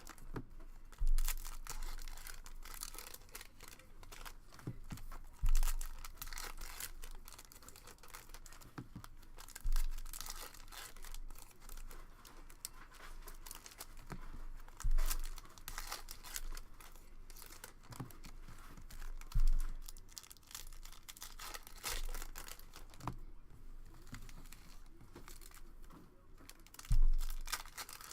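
Foil wrappers of Upper Deck hockey card packs being torn open and crinkled as the packs are opened. A dull thump every four or five seconds is the loudest sound.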